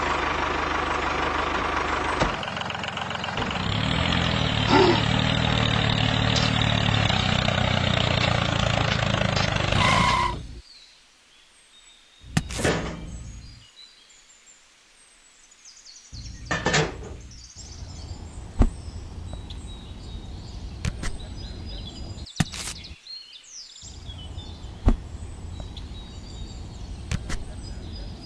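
Tractor engine running steadily for about ten seconds, then cutting off suddenly. After that come quieter scattered clicks of small plastic parts being handled and fitted.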